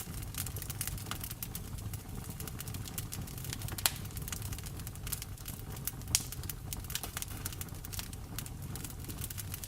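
Wood fire crackling in a fireplace: frequent small irregular pops and snaps over a steady low rumble, with two louder pops about four and six seconds in.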